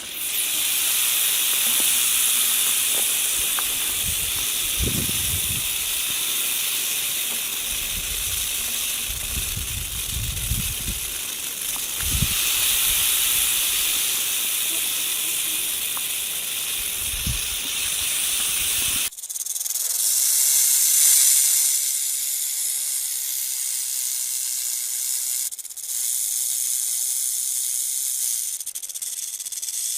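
Rattlesnake shaking its tail rattle: a continuous dry, high-pitched buzz, with a few low thuds in the first part. It cuts abruptly, about two-thirds of the way through, to another stretch of rattling that sounds thinner and higher.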